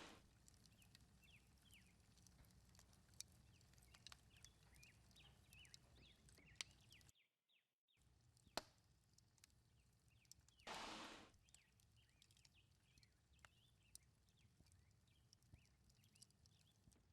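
Quiet outdoor ambience: faint bird chirps and scattered small sharp clicks, with a brief rush of noise about eleven seconds in.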